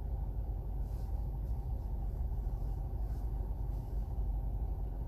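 Steady low background rumble, even in level, with no distinct events.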